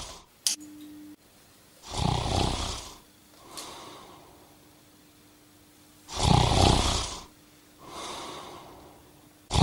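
A person snoring loudly: long heavy snores on the breath in, one ending just after the start, another about two seconds in and a third about six seconds in, each followed by a quieter breath out. A short sharp click comes about half a second in.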